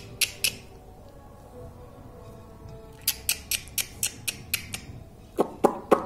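Indian ringneck parakeet clicking its beak: a couple of sharp clicks, then, about three seconds in, a quick even run of them at about four or five a second, with a few heavier, duller knocks near the end as the bird's beak comes right up to the phone.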